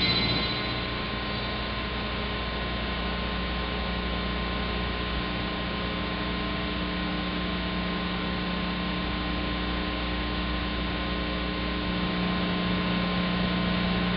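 Steady electrical mains hum over a low hiss, with no explosions heard under the fireworks footage.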